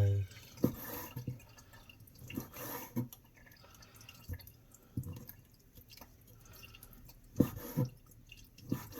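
Scattered wet clicks and knocks with dripping water as freshly boiled abalone are handled, a sharp pair of knocks standing out about seven and a half seconds in.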